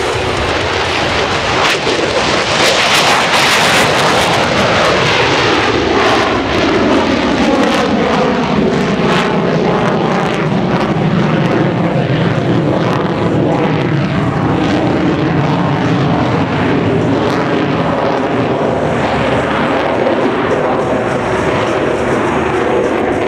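F-35A Lightning II's Pratt & Whitney F135 jet engine in full afterburner during a maximum-power takeoff and climb into the vertical: loud, steady jet noise with pitch sweeps that fall as the jet passes and climbs away.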